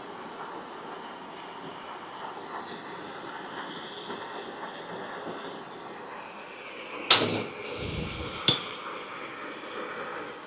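Steady hiss of a heating torch on steel bolts being bent into crab legs, broken by two sharp metal clanks about seven and eight and a half seconds in.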